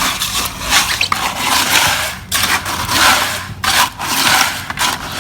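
Repeated rough scraping strokes of a tool working concrete mix, each about a second long with short breaks between.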